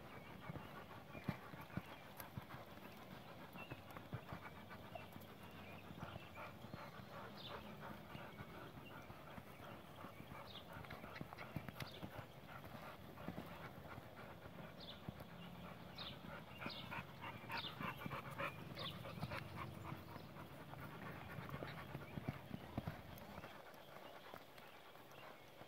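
Thoroughbred filly cantering under a rider on sand: a steady run of hoofbeats, with rhythmic panting breaths in the middle stretch.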